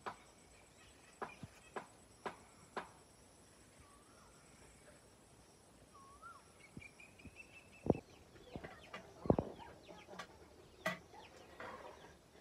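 Footsteps about two a second, then a few short bird calls, then two louder thumps and scattered rustling and knocks near the end.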